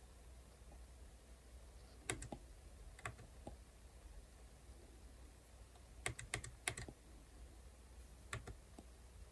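Hard stylus tip tapping on a tablet's glass screen while drawing: scattered light clicks, with a quick run of about five taps about six seconds in.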